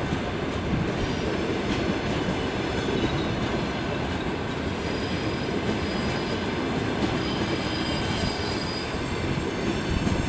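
Russian Railways passenger coaches rolling past at low speed as a train pulls out, a steady rumble of wheels on rails with a thin, high wheel squeal at times.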